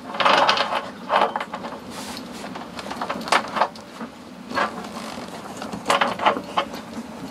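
Greased steel roller chain of a sailing yacht's wheel steering rattling and clinking as it is fitted by hand over the steering sprocket, in several short separate bursts over a steady low hum.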